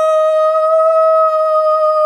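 A woman's voice holding one long, steady high note, without words.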